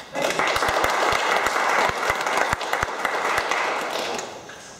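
Audience applauding a speaker, starting abruptly and dying away near the end.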